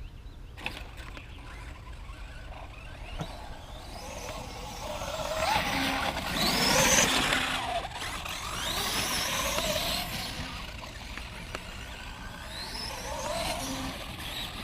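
Traxxas X-Maxx electric RC monster truck driving, its brushless motor whining up in pitch several times as it accelerates, over a steady noise of tyres on wet, muddy ground.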